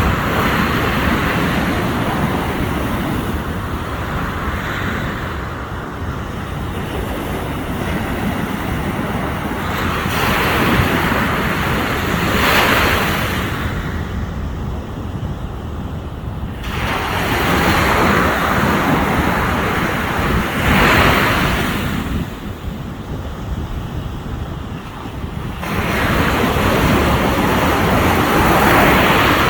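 Ocean surf breaking on a beach: waves rush in with a hiss that swells and fades every several seconds, over a steady low rumble.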